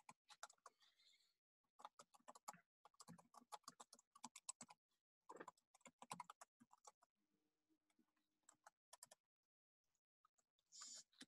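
Faint typing on a computer keyboard: quick runs of keystrokes with short pauses, a longer break just past the middle, and a brief scratchy burst near the end.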